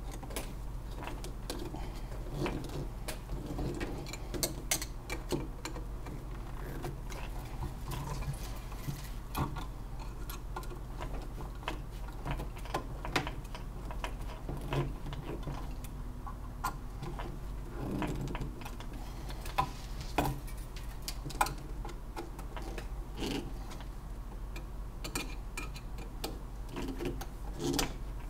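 Irregular small clicks and taps of a screwdriver and metal probe parts being handled on a workbench, over a steady low hum.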